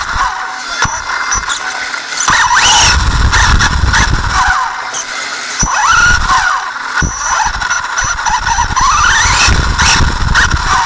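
RC buggy's motor whining, its pitch rising and falling again and again as the car accelerates and slows, heard close up from a camera mounted on the car. Sharp knocks and low rumbling come from the chassis bouncing over the dirt track's bumps and jumps.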